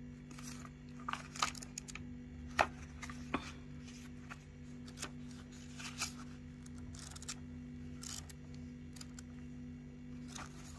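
Packaging and camera gear being handled: scattered rustles, light clicks and taps, the sharpest about two and a half seconds in, over a steady low hum.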